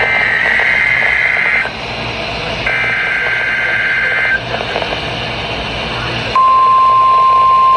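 NOAA Weather Radio test broadcast heard through a radio receiver over a hiss. It opens with two warbling two-pitch SAME data bursts, each about a second and a half long with a second's gap between them. About six seconds in, after a stretch of hiss, the steady single-pitch warning alarm tone comes on.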